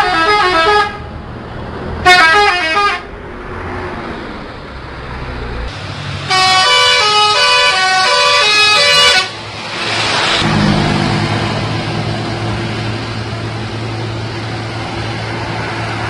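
Bus 'telolet' multi-tone musical horn playing short stepped melodies: a burst at the start, a brief one about two seconds in, and a longer tune from about six to nine seconds in. A rush of hiss follows around ten seconds in, and then a vehicle engine runs steadily.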